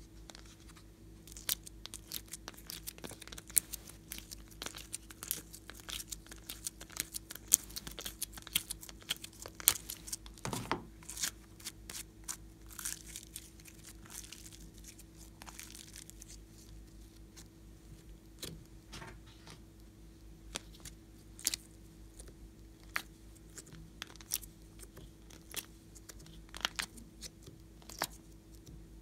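Glossy slime being worked by hand: peeled and popped out of a flexible plastic ice cube mould and stretched, giving irregular sticky clicks, crackles and crinkles of bending plastic. A faint steady hum lies underneath.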